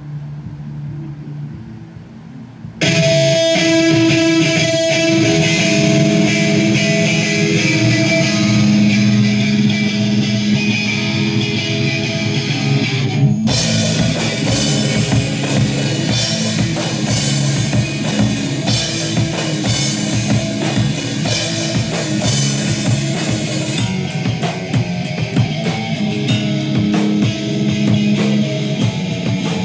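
Electric guitar played through a Marshall amp with a drum kit, a band playing loud rock together. A few quieter held notes open it, then the full band comes in about three seconds in. After a short break near the middle it picks up again with heavier cymbals.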